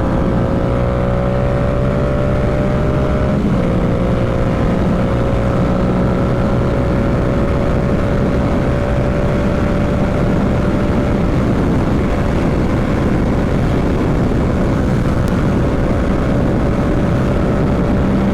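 Yamaha R7's parallel-twin engine running steadily under way, its note rising slowly as the motorcycle gathers a little speed, over a haze of wind and road noise. A brief hitch in the note about three and a half seconds in.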